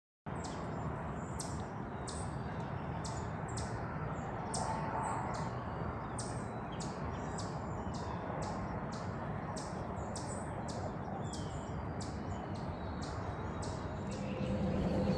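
Woodland ambience: a bird's short, high chirp repeating about twice a second over a steady low hiss.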